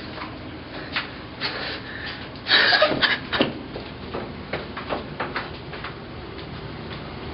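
Scattered clicks and knocks of a wooden door being handled and opened, with a louder rattle about two and a half seconds in.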